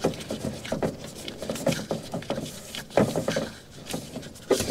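Spin-on bypass oil filter being unscrewed by hand from its mount: irregular light scrapes and clicks, with a few louder knocks.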